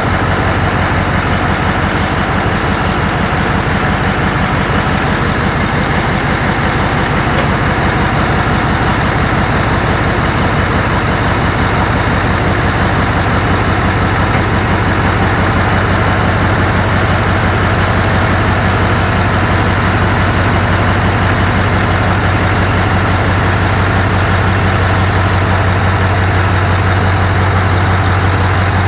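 Mercedes-Benz 3535 AK tipper truck's diesel engine idling steadily, a constant low hum.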